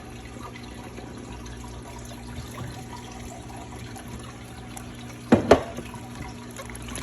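Slime being mixed: quiet wet, sticky squishing, then two loud sharp squelches close together about five and a half seconds in.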